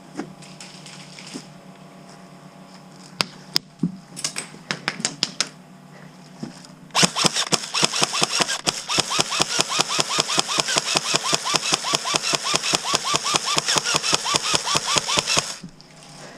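Airsoft gun firing a long full-auto string, a steady rattle of about seven shots a second that starts about seven seconds in and cuts off abruptly near the end. Scattered single clicks and snaps come before it.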